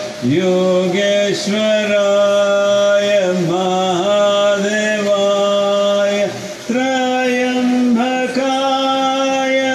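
A man singing a slow devotional chant in long, steady held notes. He pauses briefly between phrases and moves to a higher held note about two-thirds of the way through.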